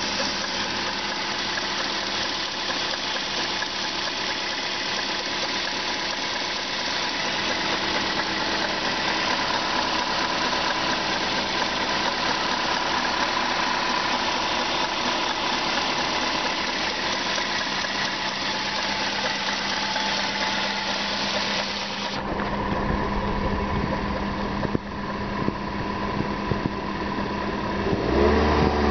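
Toyota Corolla engine idling with a light tapping knock from under the hood, like something tapping on plastic. The owner notes the knock grows more intense with revs and sounds the same cold or warm. About three-quarters of the way through, the sound turns duller, with a low rumble.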